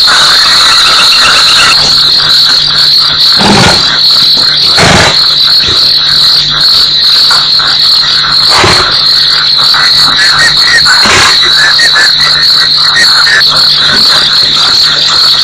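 A dense night insect chorus, a steady high trilling that never lets up, over a constant low hum. Four short noises cut across it, about a third of the way in, near halfway, and twice more later on.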